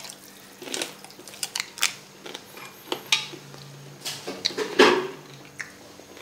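Crockery clinking and tapping as a white plate and a small sauce bowl are handled with pieces of boiled chicken: a dozen or so sharp separate clicks, the loudest about five seconds in, over a faint steady low hum.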